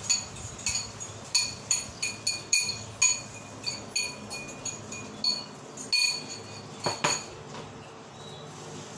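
A utensil tapping and scraping against a ceramic bowl, about three ringing clinks a second, as the last of the beaten egg is scraped out into a frying pan. The clinking stops about seven seconds in.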